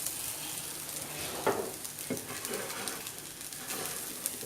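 Cooked rice being stirred into fried grated carrot and spices in a hot oiled pan: a steady sizzle, with a spatula scraping the pan a few times.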